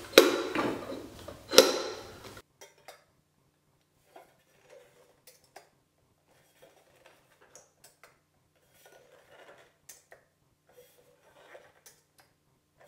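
Metal clinks and knocks from handling a cylindrical enlarger lamphouse with its lamp holder loosened, two sharp knocks in the first two seconds. Then faint scattered ticks and taps.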